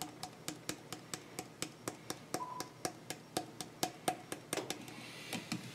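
Coolant concentrate dripping from an upturned squeeze bottle into distilled water in a glass measuring jug: faint, regular plinks, about four a second.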